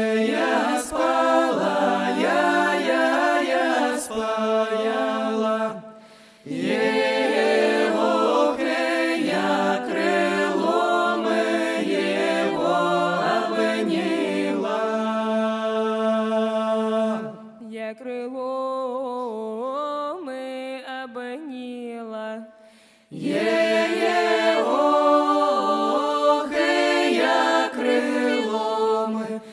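Unaccompanied group of voices singing a folk-style song in harmony over a held low note. There is a short break about six seconds in. From about 17 to 23 seconds in the singing thins to a quieter passage with wavering, ornamented lines, then the full group comes back in.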